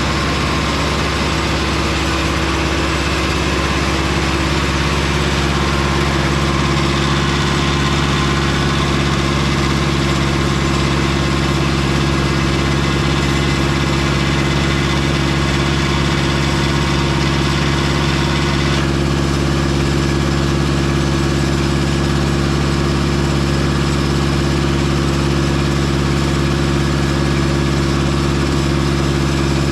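Engine of a Mobile Dimension circular-blade sawmill running steadily at constant speed, with a higher whine above it that shifts about 19 seconds in.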